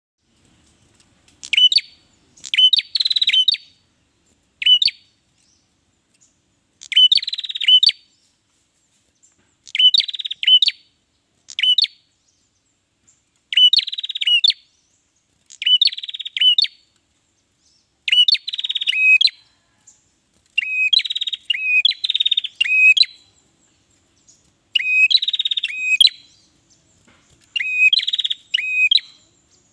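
Ashy tailorbird singing in full song: short phrases of high, rapid trilling and clear whistled notes, repeated about every two seconds with short silences between.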